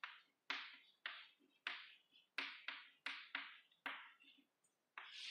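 Chalk writing on a chalkboard: a quick run of short, scratchy strokes, about two or three a second, with a brief pause near the end.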